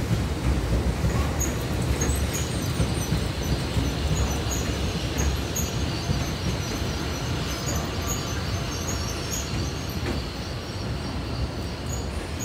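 Tobu 70090 series electric commuter train rolling past onto a siding, a steady rumble of wheels on the rails. Short high squeaks are dotted all through it.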